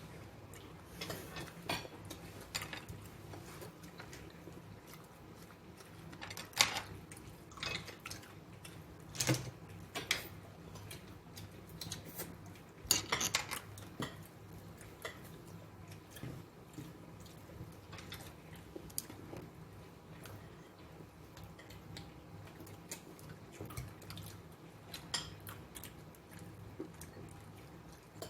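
Utensils and dishes clinking now and then during a meal: scattered sharp clicks against a plate or bowl, with quieter handling sounds between.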